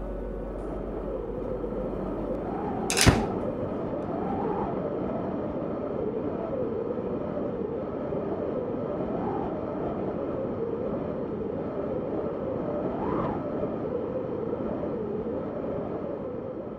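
A steady, wavering noise wash without melody or beat at the tail of a recorded song, with one sharp crack about three seconds in.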